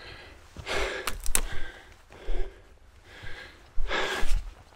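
A man breathing hard with loud gasping breaths, one about every second, out of breath from climbing a steep slope with a pack. A few sharp clicks come about a second in.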